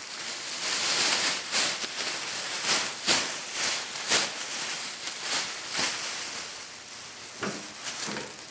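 Thin plastic sheeting rustling and crinkling as it is spread out and smoothed over by hand, in a string of quick swishes.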